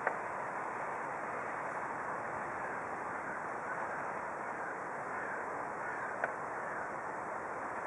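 Steady outdoor rushing noise, with a few faint short calls in the middle and two sharp clicks, one right at the start and one a little after six seconds in.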